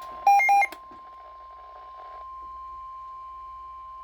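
Two short electronic beeps back to back from a weather radio receiver, over a faint steady tone.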